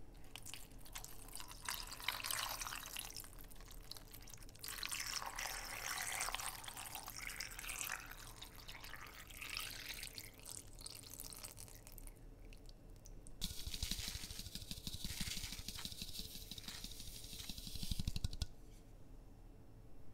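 Water pouring from a plastic jug into a pot packed with oden ingredients, splashing as it fills, in several long pours with short pauses between.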